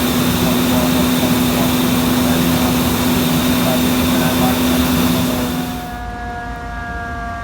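Loud, steady engine noise with a strong low hum, typical of fire apparatus running at a scene. About six seconds in it gives way abruptly to a siren tone that slides slowly down in pitch.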